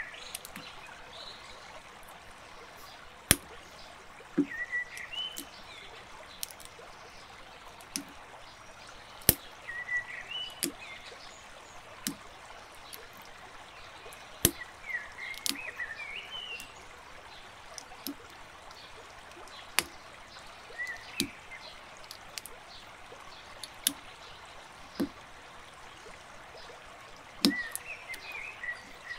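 Plastic building bricks being handled and snapped together: sharp single clicks every one to three seconds over a steady low hiss.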